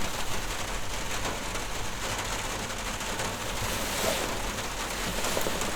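Rain hitting the roof and walls of a hunting blind, a steady even patter.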